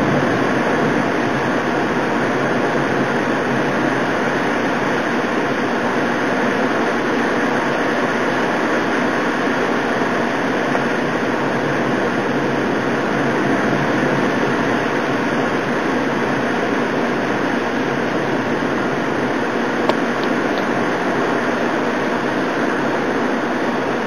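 Torrential thunderstorm downpour driven by high wind: a steady, dense rushing noise of heavy rain that holds constant throughout.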